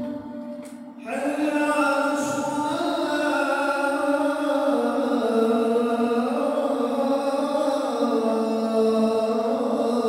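A voice chanting in long held notes that step slowly in pitch, pausing briefly about a second in before carrying on.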